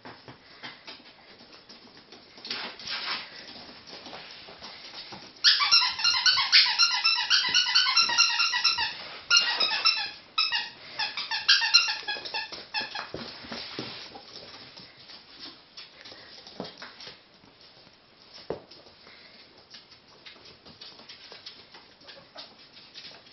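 Ferrets at play on a wooden floor: light scuffling and knocks, with a loud run of rapid, repeated high squeaks from about five seconds in until about thirteen seconds.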